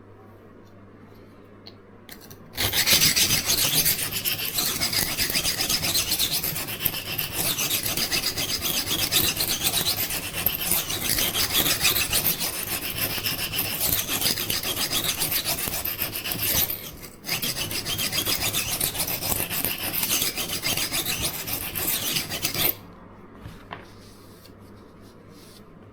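Steel knife edge of a Seki Magoroku petty knife scraping back and forth on the coarse side of an oil-soaked Norton 37C combination sharpening stone. It is a loud, continuous rasp that starts a few seconds in, pauses briefly about two-thirds of the way through, and stops a few seconds before the end.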